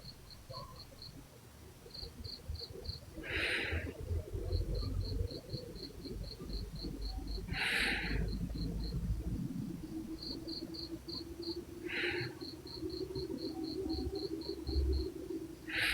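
A sleeping person breathing heavily and snoring, a breath about every four seconds, with a low buzzing snore near the end. A cricket chirps throughout in rapid, evenly spaced high pulses, broken by short pauses.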